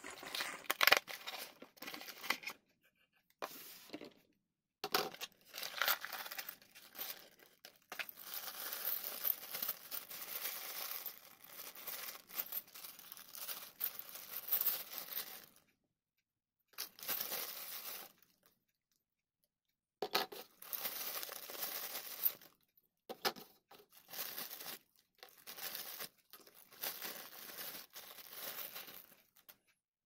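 Computer-part packaging being handled and unwrapped: irregular crinkling and rustling in bursts, with two short pauses past the middle.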